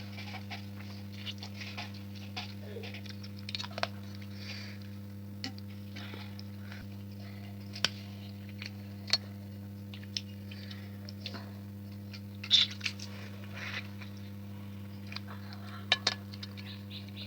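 Eating sounds: a person chewing and smacking, with scattered sharp clicks and short crunches, the loudest about twelve seconds in, over a steady low hum.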